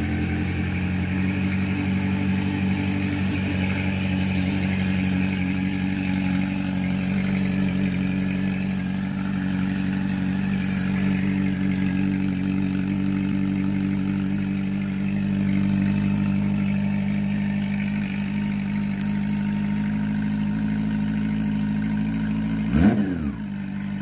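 Honda CB400 Super Four Hyper VTEC Revo's inline-four engine idling steadily through an SC Project slip-on exhaust, then given a quick throttle blip near the end that revs up sharply and drops straight back.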